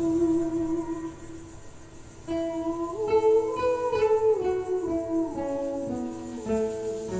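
Guitar music: a held note dies away, then from about two seconds in a run of plucked notes climbs and then steps downward.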